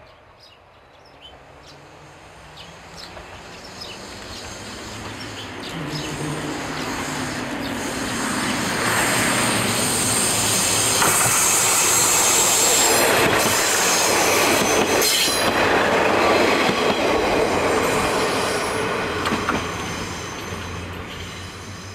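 KiHa 40 diesel railcar train approaching, passing close by and fading away: the diesel engine runs under the clatter of wheels over the rail joints, with a high wheel squeal as it takes the curve. The sound swells steadily to its loudest around the middle and dies away toward the end.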